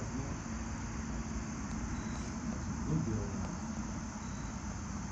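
A steady, high-pitched chorus of insects, over a low background rumble.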